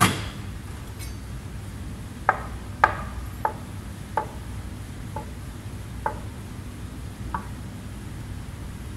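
Kitchen knife chopping on a cutting board: a series of separate, unhurried knocks, about seven of them roughly one a second, starting about two seconds in, for a coarse chop of tartar sauce ingredients.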